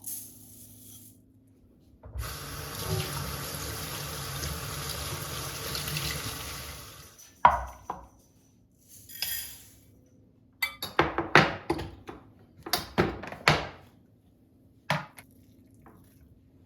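Kitchen tap running into a sink for about five seconds, then a run of sharp clinks and knocks, loudest in a quick cluster about eleven to fourteen seconds in.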